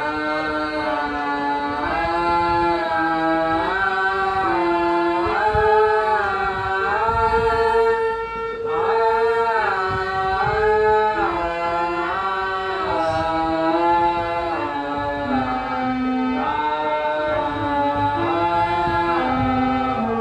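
A voice singing a melody in distinct stepped notes, sargam-style, moving up and down the scale.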